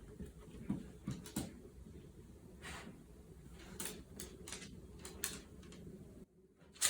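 Dogs' claws clicking on a hard floor as they walk about, a scattering of light irregular taps over a low room hum. The sound cuts out briefly just before the end.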